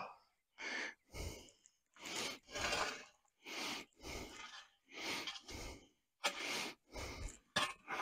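A person breathing hard: about ten short, rhythmic breaths in and out, with silence between them.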